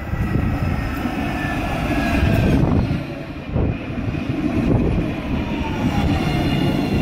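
Tram passing close by, its steel wheels rumbling on the rails, with a few dull knocks and a faint whine that falls in pitch as it goes by.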